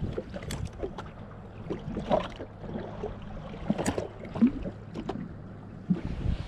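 Wind and water noise around a jet ski at sea, with a steady low hum and scattered light clicks and knocks.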